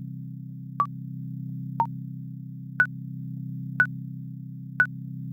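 Countdown timer beeping, one short electronic beep a second, five in all, the last three higher-pitched, over a steady low background-music drone.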